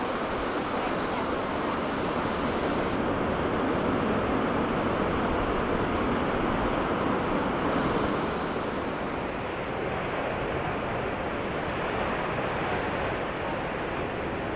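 Ocean surf washing over a rocky shore, a steady wash of breaking waves mixed with wind, easing slightly about halfway through.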